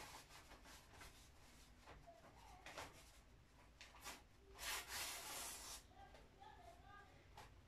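Faint rustling and rubbing of paper being handled, in a few short bursts; the longest lasts about a second, a little past the middle.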